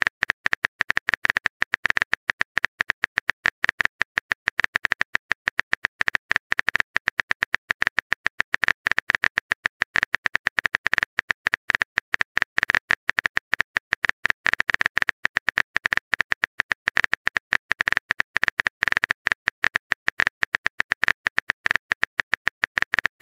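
Smartphone keyboard tapping clicks: a rapid, uneven stream of short taps, many a second, as a long message is typed.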